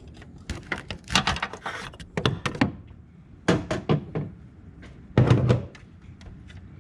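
Hand tools clinking and knocking against metal parts in an engine bay during belt tensioner removal: a run of sharp clicks and knocks, with a heavier thunk about five seconds in.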